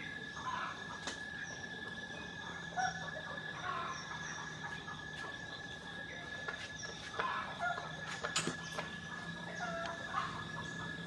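Short, scattered bird calls, fowl-like clucks, over a steady high-pitched tone, with a few sharp clicks.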